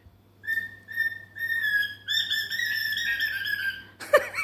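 A cockatiel whistling: three short notes, then one longer wavering whistle.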